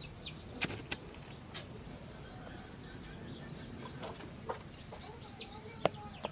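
Small birds giving short, falling chirps, with hens clucking faintly. Several sharp clicks or knocks come through, the loudest just before the end.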